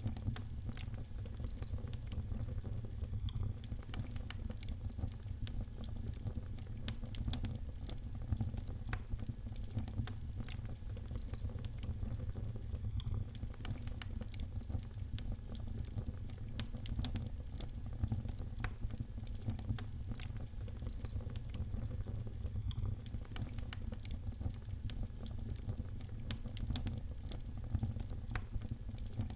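Wood fire crackling in a fireplace: a steady stream of small sharp pops and snaps over a low, even rumble.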